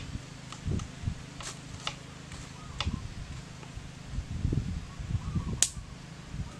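Oysters being handled on a stone slab over a small wood fire: scattered light clicks and soft knocks as the shells are moved, with one sharp click about five and a half seconds in.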